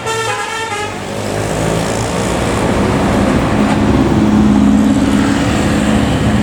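The last notes of a basuri telolet horn tune on a Scania K410 bus, fading out about a second in, followed by a vehicle engine running and building, its pitch climbing slightly and growing louder with road noise.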